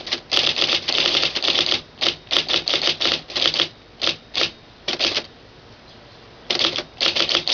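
IBM Correcting Selectric III electric typewriter typing a short sentence: quick runs of typeball strikes broken by short gaps, with one gap of about a second before a final run near the end.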